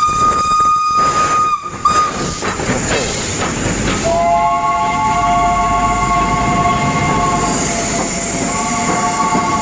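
Steam locomotive whistles over the locomotive running past. It opens with a single-note blast of about two seconds, then gives a lower, several-note chord whistle held about three seconds, and a shorter repeat of the chord near the end.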